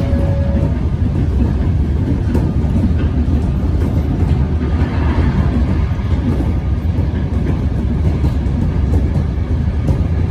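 Melbourne suburban electric train running, a steady low rumble.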